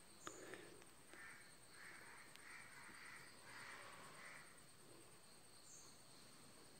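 Faint scratching of a graphite pencil shading on drawing paper: a run of about six short strokes from about a second in, over near-silent room tone.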